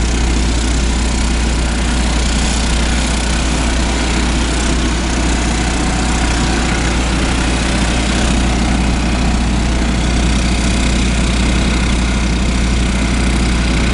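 Generators running steadily under load: a Kubota/Powertech 15 kW generator heard from some distance, with two Honda EU2000 inverter generators audible over it. A constant low hum under an even mechanical noise.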